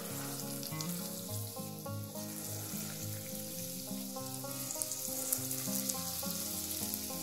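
Hot oil sizzling steadily in a kadhai as balls of urad dal batter deep-fry into vadas, with scattered light crackles. Soft background music plays a simple stepping melody underneath.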